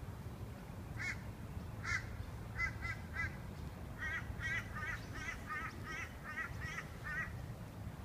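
A bird calling in a series of short, harsh notes: two single calls, then three in quick succession, then a steady run of about ten at roughly three a second.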